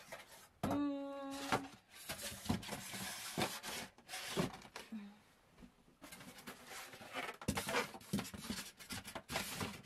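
Cardboard box and styrofoam packing being handled: scraping, rustling and light knocks as hands dig through the carton. About half a second in there is one held, steady squeak lasting about a second.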